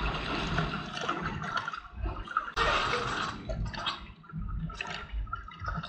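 Swimming-pool water splashing and sloshing right at a microphone that sits at the waterline, in irregular surges. The strongest surge starts suddenly about two and a half seconds in.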